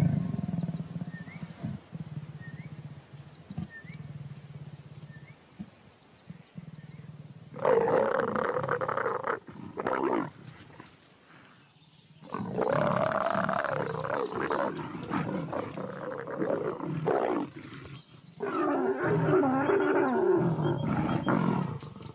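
A mating pair of leopards snarling and growling: harsh, rising-and-falling calls come in three long bouts, starting about eight seconds in.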